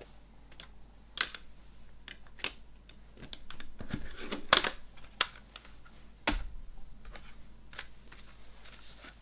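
Plastic CD jewel case handled on a wooden table: a string of sharp plastic clicks and clacks. The loudest comes about halfway through, as the disc is pressed onto the tray. A click with a low knock follows a little later.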